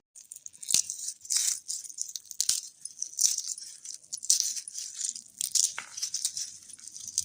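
Garlic cloves being peeled by hand: dry papery skins rustling and crackling irregularly, with scattered sharp little clicks.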